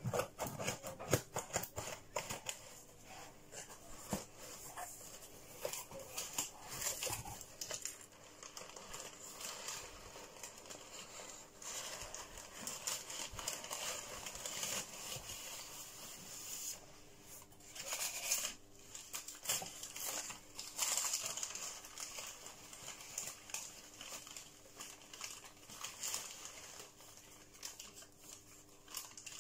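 Scissors snipping through parcel tape, then crumpled newspaper packing rustling and crinkling as it is pulled out of a cardboard box and unwrapped from a plant.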